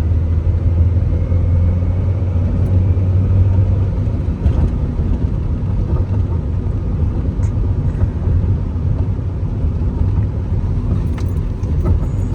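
In-cabin sound of a 2001 Honda Prelude driving on the road: a steady low drone of engine and tyre noise, with a few faint ticks or rattles. The car is cruising smoothly on its automatic transmission with no sign of trouble.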